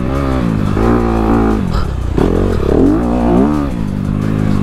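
Honda CRF250RX dirt bike's single-cylinder four-stroke engine revving under hard riding, its pitch climbing and dropping several times with throttle chops and gear changes.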